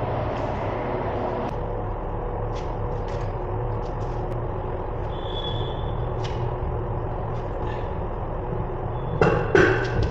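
Steady low machinery hum with scattered light clicks of tools and parts, then a couple of loud metal clanks near the end as the forklift's drive wheel is handled on the concrete floor.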